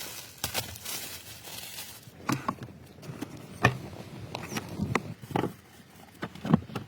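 Irregular light clicks, taps and knocks of hands handling car parts and tools, about a dozen short sounds at uneven intervals.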